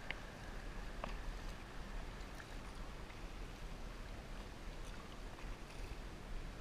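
Kayak paddling: a double-bladed paddle dipping and pulling through the water with steady splashing and water noise, with a couple of light clicks in the first second.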